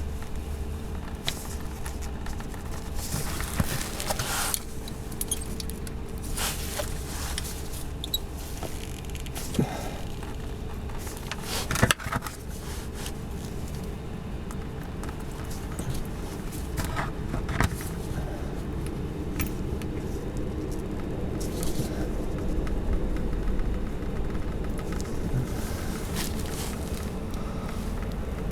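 Scattered metallic clicks, clinks and rustling, with one sharp knock about twelve seconds in, over a steady low hum.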